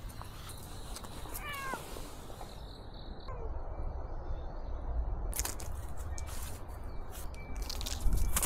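A cat meows once, a short call that falls in pitch about a second and a half in, followed by a fainter short falling call about two seconds later. A low rumble runs underneath, with a thump near the end.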